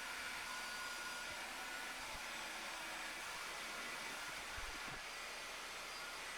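Faint steady hiss with a thin whine in it: background room noise.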